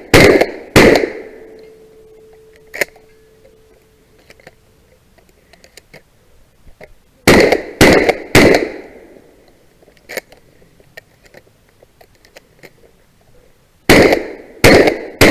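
Shotgun fired in quick strings of shots about two-thirds of a second apart: two at the start, three about seven seconds in and three more near the end. A faint steady ringing tone hangs on for a few seconds after the first string.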